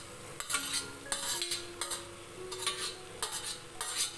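Metal spoon scraping and clinking against a steel bowl in about six short strokes, as fried soya chunks and boiled potato pieces are pushed out of it into a pan of masala.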